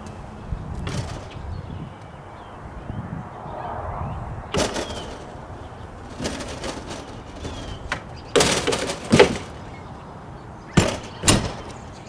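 RV entry door pushed shut and worked to test a newly fitted Carmtek keyless door latch against the old striker: a series of knocks and latch clicks, the loudest cluster about two-thirds of the way in. The latch catches on the original striker.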